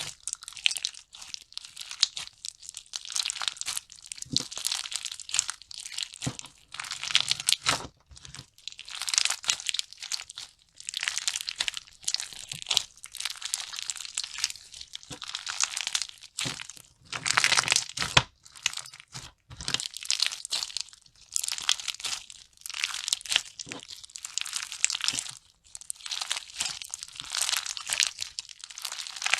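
Slime being squeezed and worked by hand, in repeated bursts of fine crackling a second or two long with short gaps between.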